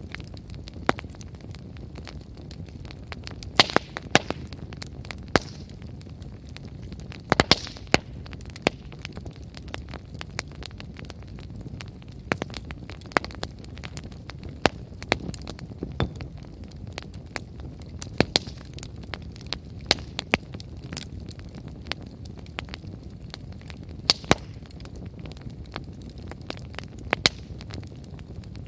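Wood bonfire burning, the firewood crackling with irregular sharp cracks and pops over a low steady rumble. A few louder pops stand out, some in quick pairs.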